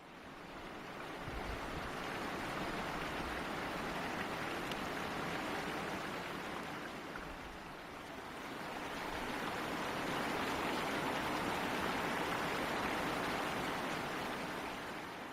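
Steady rain falling, an even hiss that builds over the first couple of seconds, eases a little about eight seconds in, then swells again.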